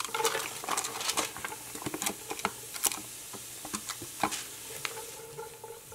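Diced onion, celery and carrots sizzling in butter in an enamelled pot while a wooden spoon stirs them, with irregular scrapes and taps of the spoon against the pot. The vegetables are at the start of the saute, still crunchy.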